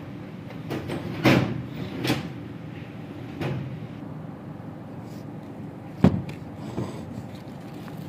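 A few sharp knocks and clatters of handling, the loudest a little over a second in and again about six seconds in, over a steady low background hum.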